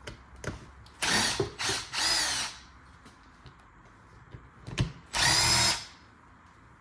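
Power drill/driver with a T30 Torx bit whirring in short runs as it backs out Torx screws: three quick runs close together, then a longer one about five seconds in, with small clicks between.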